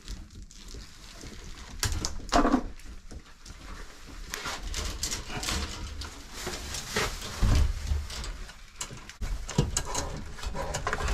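Rustling and scraping of a bundle of electrical wires being taped and fed through a panel opening, the wires rubbing on each other and on the sheet-metal enclosure in uneven strokes. A short pitched sound about two seconds in is the loudest moment.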